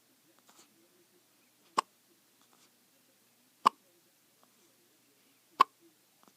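A newborn baby hiccuping: three short, sharp hiccups, evenly spaced about two seconds apart.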